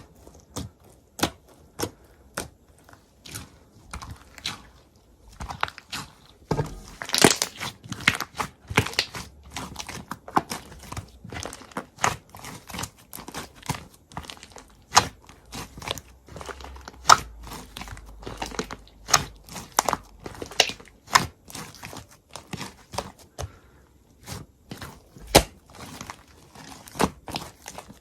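Close-up crinkling and crackling of something being handled, with many sharp little clicks and taps in quick irregular succession.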